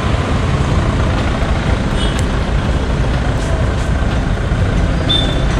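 Steady low rumble of a motor vehicle on the move, with road noise.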